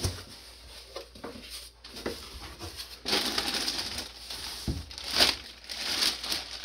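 Rustling and crinkling of packaging as a box is unpacked and a garment pulled out, busier and louder in the second half, with a few light knocks.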